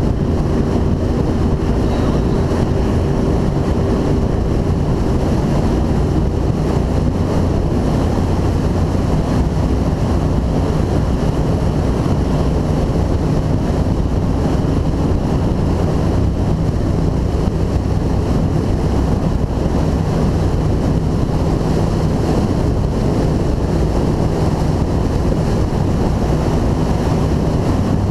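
Engines of a 2002 Formula 292 Fastech powerboat running at a steady cruising speed, a constant drone, with wind buffeting the microphone and water rushing past the hull.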